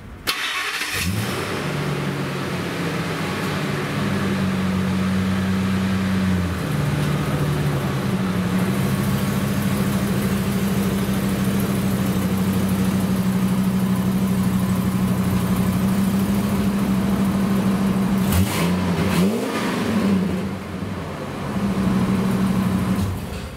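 Ford Excursion's 6.8-litre Triton V10, with a Y-pipe and Magnaflow exhaust and no catalytic converters, starting up and catching within about a second, then running at a steady low idle. The engine speed rises and falls briefly near the end as the truck moves off.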